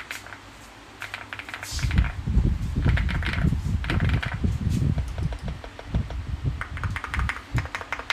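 Mechanical keyboard being typed on: rapid clacking keystrokes in flurries. Deep thuds run under the clicks from about two seconds in until near the end.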